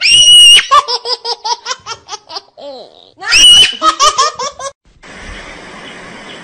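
High-pitched laughter: a shrill squeal followed by a quick run of 'ha-ha' pulses, heard twice. It cuts off at about five seconds and gives way to a steady hiss.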